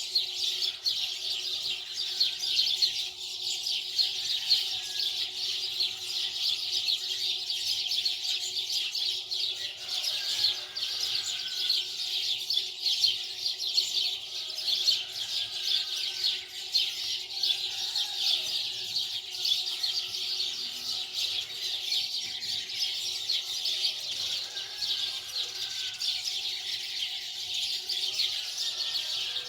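A dense, continuous chorus of many small birds chirping, with no let-up. A faint steady hum lies underneath.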